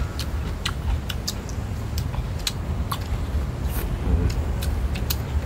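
Eating sounds: people chewing and picking at grilled fish with chopsticks, giving a few scattered sharp clicks a second over a low steady rumble.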